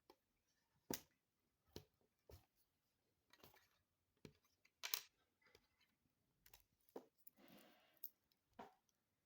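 Packaging being handled during an unboxing: scattered sharp clicks and taps, the loudest about five seconds in, with two short rustles.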